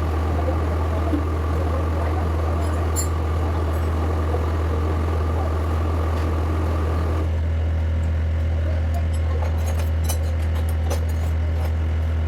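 A Doosan excavator's diesel engine running steadily with a deep, even hum. A higher hiss and whine over it stop about seven seconds in, leaving the engine hum with scattered light clicks.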